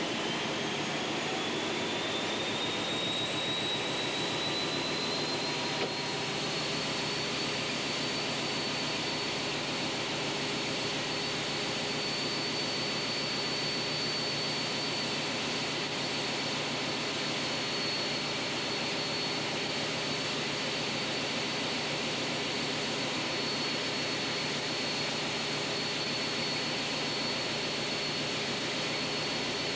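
Hastings diesel-electric multiple unit 203 001 running along the line: a steady mix of engine and running noise, with a thin high whine that rises over the first several seconds and then holds level.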